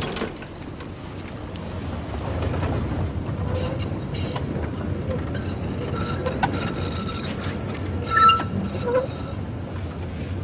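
Interior of a moving metro train car: a steady low rumble with rattles and clicks, and brief thin high squeals a little past the middle, the loudest shortly before the end.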